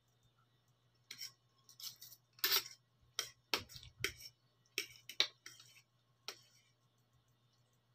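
Metal spoon and fork clinking and scraping against a plate while noodles are scooped up: a string of about a dozen sharp clinks and short scrapes, starting about a second in and stopping about six seconds in.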